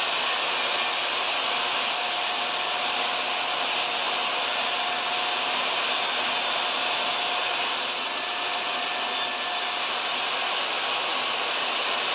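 Table saw running steadily while ripping a red oak board lengthwise down the middle, a steady rush with a thin high whine. Dust extraction runs along with it through the hoses on the blade guard and saw.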